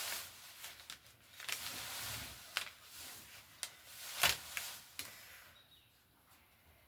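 Blind-bag packaging being handled and opened: rustling and crinkling with scattered sharp clicks and snaps, busiest in the first few seconds and fading near the end.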